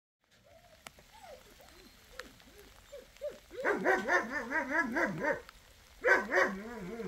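A dog yelping and whining: faint whines at first, then a rapid run of high yelps for about two seconds, and another burst of yelps near the end.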